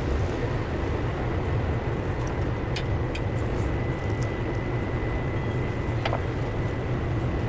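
Steady low rumble of background kitchen machinery, with a thin steady high tone above it and a few light clicks about three and six seconds in.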